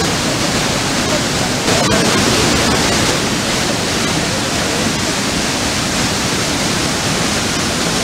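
Loud, steady rush of the Pailón del Diablo, a large waterfall plunging into the Río Pastaza gorge.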